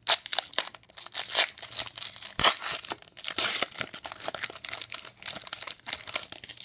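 Foil wrapper of a hockey trading-card pack being torn open and crinkled by hand as the cards are pulled out: a dense, irregular run of crackles and rustles.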